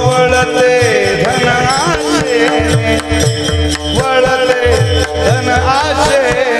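Devotional kirtan music: a voice singing a long, high, gliding melodic run without clear words over a steady drone, with pakhawaj drum strokes repeating underneath.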